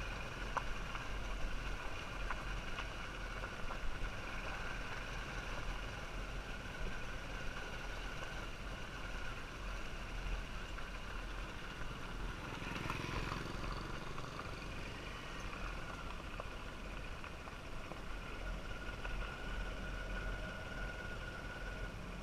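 Steady road and traffic noise with a low rumble, and one vehicle passing by, swelling and fading, about thirteen seconds in.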